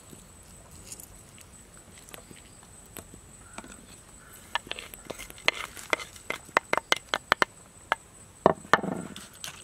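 Crushed peanuts pattering down into a bowl of food: a quick run of sharp clicks and taps from about halfway through, then a louder dull thump near the end.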